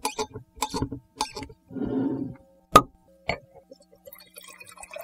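Short musical intro: quick pitched struck notes, a brief noisy swell about two seconds in, then two sharp clinks, the second fainter, tapering off into faint ticks.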